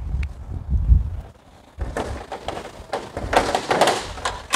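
Wind buffeting the microphone with a low rumble for the first second. Then, from about two seconds in, a run of sharp metallic clicks and rattles from a trailer's steel rear door and its locking hardware being handled.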